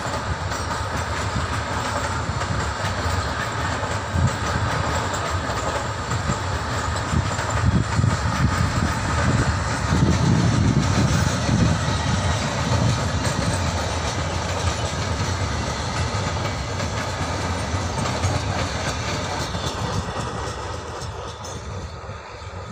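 Freight train flat wagons rolling past close by, their steel wheels clattering on the rails, loudest about halfway through. The noise eases off near the end as the brake van passes.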